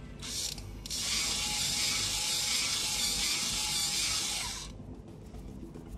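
Toy electric drill from a play tool set whirring as its bit spins into a hole in a plastic block: a short burst, then a longer run of about four seconds that fades out near the end.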